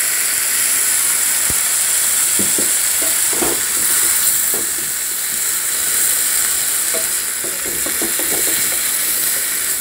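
Minced mutton (keema) sizzling and frying in a non-stick pan with a little water just added. It is stirred with a wooden spatula that scrapes and taps against the pan every second or so, with a cluster of taps near the end.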